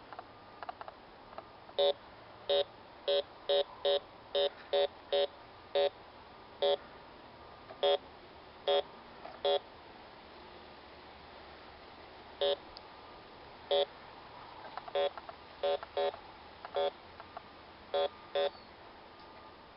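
Metal detector giving short, identical, mid-pitched beeps, about twenty of them, some in quick runs and some spaced a second or more apart, as it sweeps over a buried metal target.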